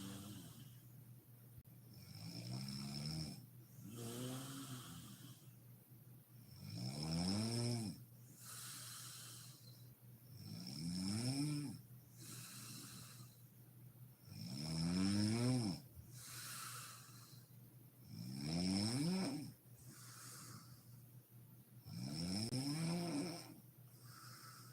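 A woman snoring in deep sleep: a pitched snore that rises and falls in tone about every four seconds, six or so in all, with a breathy puff of air between snores.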